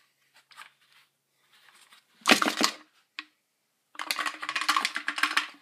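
Plastic and metal parts of a partly dismantled Poulan 1800 Woodshark chainsaw rattling and clattering as they are handled. There are a few faint clicks, a short rattle a little past two seconds in, then a longer rattle over the last second and a half.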